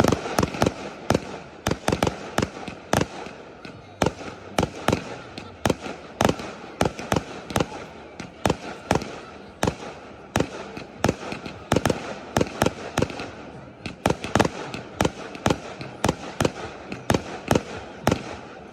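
Aerial fireworks display at full intensity: a continuous barrage of shell bursts, two or three sharp bangs a second, with a steady crackle and hiss between them.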